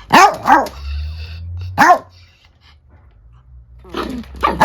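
Small dogs barking angrily in short, sharp barks: two quick barks, a third just over a second later, then a pause and a few more barks near the end.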